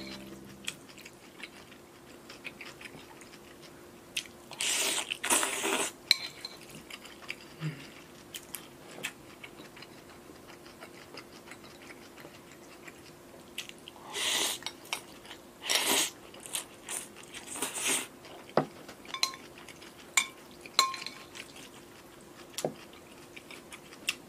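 Close-miked eating of cold buckwheat liangpi noodles with pea shoots: soft chewing and crunching with small clicks, broken by several louder slurps, the loudest around 5 s and again around 14 to 18 s. Metal tongs tap now and then on a ceramic bowl.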